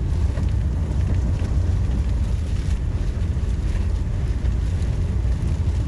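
Strong wind gusting around a tornado, heard mainly as a steady low rumble of wind on the microphone.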